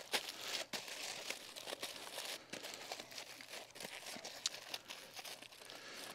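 Heavy-duty aluminum foil crinkling and crumpling in faint, scattered crackles as it is wrapped around a wooden stake and squeezed into a ball.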